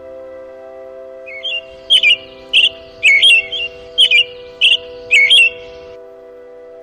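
A small songbird chirping: a run of short, sharp calls, about one every half second for some four seconds, over a sustained ambient music pad.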